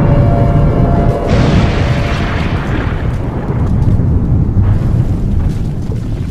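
Explosion sound effect: a loud, deep rumble throughout, with a fresh hissing blast about a second in and another near five seconds.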